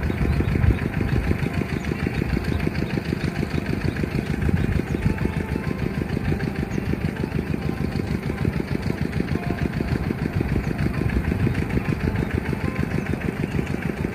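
Steady low rumble of wind buffeting an outdoor microphone, fluttering unevenly in loudness.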